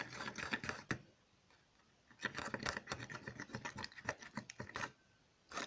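Glue and glycerin being stirred in a small bowl, a utensil scraping and clicking against the bowl in quick strokes. Two spells of stirring, the first about a second long, the second about three seconds, with a short pause between.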